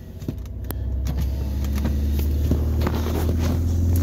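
Low steady mechanical hum of a car heard from inside the cabin, building up over about the first second and then holding steady, with a few faint clicks over it.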